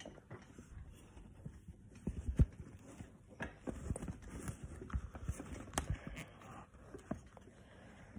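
Irregular low thumps, knocks and rubbing of a phone being handled close to its microphone, with a few sharp clicks; the loudest knock comes about two and a half seconds in.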